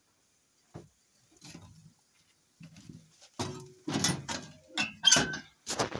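Knocking and clatter at a wood-burning cook stove's oven as baked potato halves are handled and taken out: a single click about a second in, then a quick run of louder knocks in the second half.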